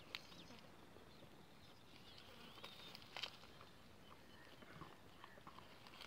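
Near silence: faint outdoor ambience with a few soft clicks and a couple of faint, short, high-pitched chirps.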